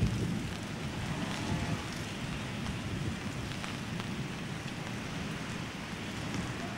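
Torrential rain falling steadily, a continuous hiss with a low, fluctuating rumble underneath.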